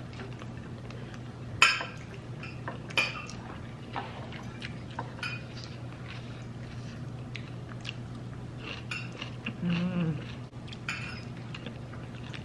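Cutlery and plates clinking during a meal: scattered sharp clinks, the two loudest in the first few seconds, over a steady low hum. A short hummed 'mm' comes near the end.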